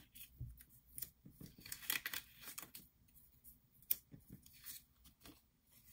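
Die-cut cardstock pieces being pushed out of their sheet by hand: faint paper rustling with small tearing ticks, and a sharper click about four seconds in.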